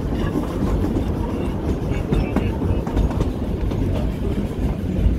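Carriage of the Puffing Billy narrow-gauge steam train running along the track, heard from on board: a steady rumble and rattle of wheels and carriage.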